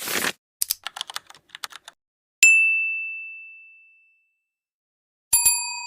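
Sound effects: a brief whoosh, a run of quick keyboard-like typing clicks, then a single clear ding that rings out. Near the end, a bell-like chime is struck twice and keeps ringing.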